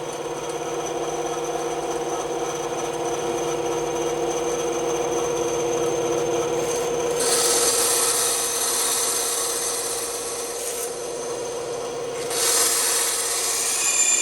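Bandsaw running with a steady hum as its blade cuts through wood. The rasp of the cut grows louder about seven seconds in and again near the end.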